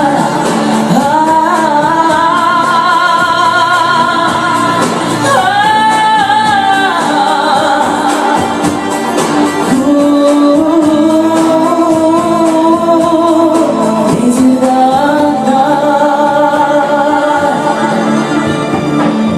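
Pop song with long held, wavering vocal notes without clear words over a steady instrumental backing.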